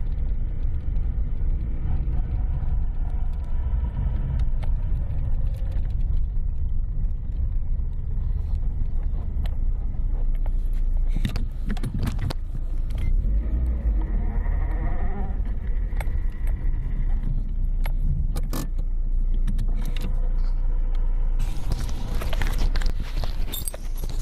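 Lada Priora driving over rough road: a steady low rumble of tyres and suspension, with several short knocks and rattles scattered through the middle. This is a test drive for the knock over small potholes after the steering rack was rebuilt.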